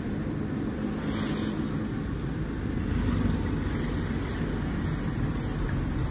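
Steady low rumble of a car's engine and tyres, heard from inside the cabin while driving slowly in traffic.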